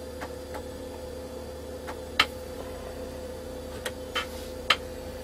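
Steady hum of an old 486 PC running, with a few short, scattered clicks as keys are pressed on its keyboard.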